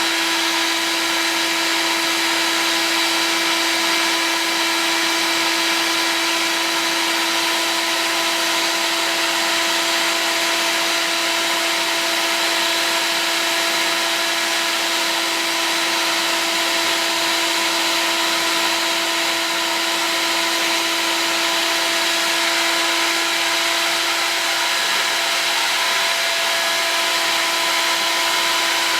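Heat gun running steadily: a loud, even blower hiss with a constant motor hum, heating an acrylic tube to soften it for bending.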